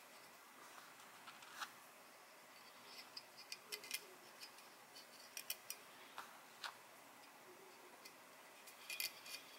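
Faint, scattered small clicks and ticks of small metal M3 spacers being fitted by hand onto screws standing through a carbon-fibre drone frame, with a bunch of clicks about four seconds in and another near the end.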